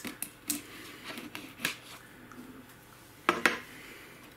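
Cardboard graphics-card retail box being handled and turned over, with scattered light taps and scrapes, then a louder double knock a little over three seconds in as it comes to rest on a stone worktop.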